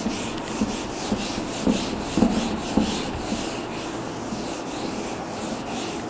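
Whiteboard eraser wiped back and forth across a whiteboard: a steady rubbing hiss in quick repeated strokes.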